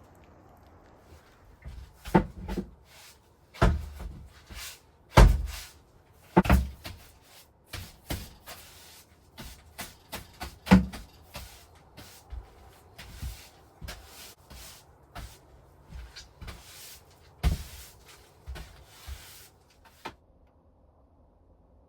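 Irregular knocks and clunks, like cupboard doors or wooden panels being handled in the small space of a camper. The loudest comes about five seconds in, and the knocking stops about twenty seconds in.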